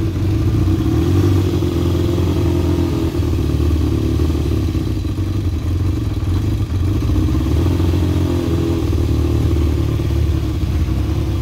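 Yamaha XJ600's air-cooled inline-four engine idling steadily on choke just after a cold start.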